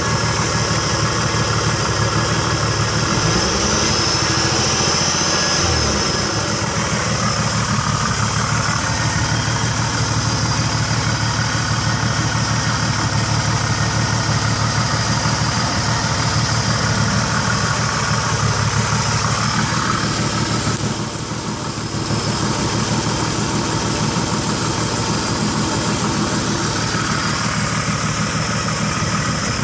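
1991 Nissan Maxima's V6 idling steadily, with a random noise that new plugs, wires, distributor cap and rotor have not cured. A few seconds in, a brief sound rises and then falls in pitch, and about two-thirds of the way through the level dips for a moment.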